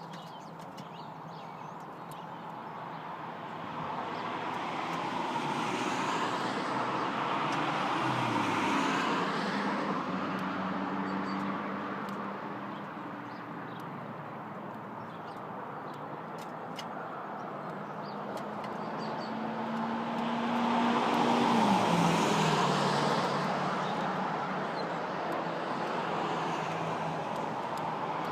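Two road vehicles passing by, one about a third of the way in and one about three-quarters in. Each swells and fades, its engine pitch dropping as it goes past.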